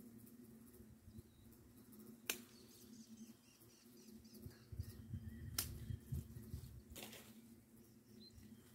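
Three sharp snaps, the first about two seconds in and the last two a second and a half apart near the end, as twigs and branches of an orange tree are pruned off by hand.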